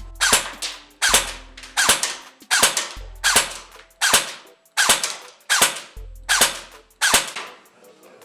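Krytac Kriss Vector airsoft electric gun firing single shots, about ten sharp cracks roughly one every three-quarters of a second. It is shooting 0.30 g BBs on a 7.4 V LiPo battery during a chronograph test.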